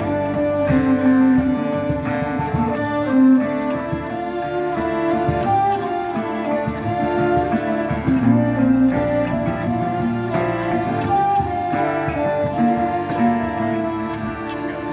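A band playing instrumental music, with held melody notes over plucked strings.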